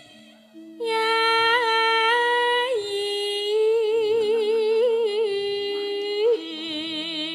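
A sinden, a female Javanese gamelan singer, sings one long melismatic phrase with wavering vibrato into a microphone over soft held gamelan tones. The phrase starts about a second in and ends about six seconds in, and another wavering melodic line follows.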